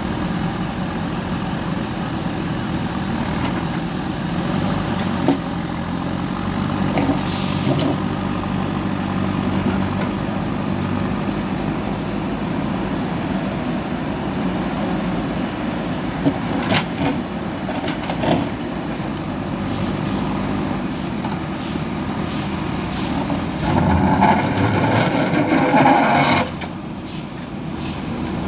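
JCB backhoe loader diesel engine running steadily under work, with a few sharp knocks. Near the end the engine works louder for a couple of seconds, then drops back suddenly.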